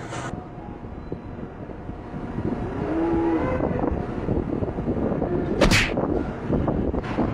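Steady vehicle and road noise, then one sudden loud crash about five and a half seconds in as an overloaded mini truck tips over onto its side.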